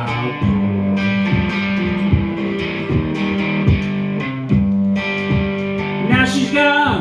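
Amplified cigar box guitar playing a blues phrase over a steady low drone note, with plucked notes and a pitch glide up and back down near the end.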